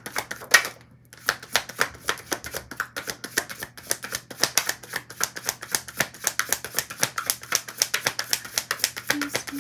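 A deck of tarot cards being shuffled by hand: a rapid, continuous run of crisp card slaps and flicks, several a second, with a brief pause about a second in.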